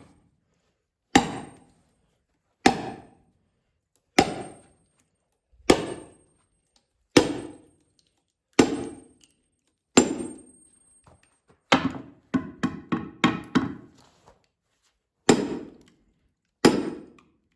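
Splitting maul striking a steel wedge driven into a large firewood round: heavy metal-on-metal blows with a ringing top, about one every second and a half. A run of quicker, lighter knocks comes about two-thirds of the way through. The wedge is working the round apart as it starts to split.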